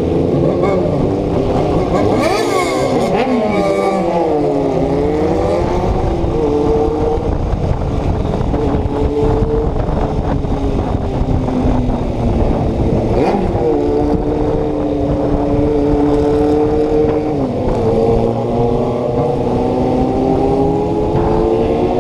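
Yamaha Ténéré 250's single-cylinder engine running under way. The revs rise and fall several times, with steady stretches between, sharp drops around the middle and a steady climb near the end.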